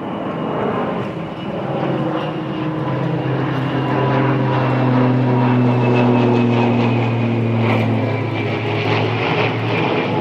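Small propeller plane flying overhead, its steady engine drone growing louder toward the middle and easing off near the end.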